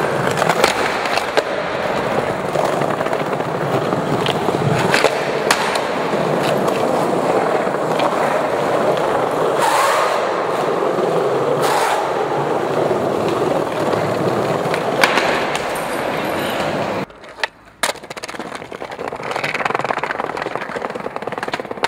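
Skateboard wheels rolling steadily over tiled and paved ground, with several sharp clacks of the board's tail popping and landing. The rolling drops away briefly about three-quarters of the way through, then starts again.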